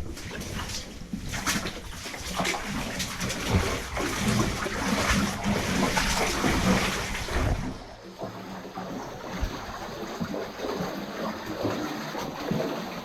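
Footsteps wading and splashing through standing water for about eight seconds, then giving way to quieter sloshing and trickling.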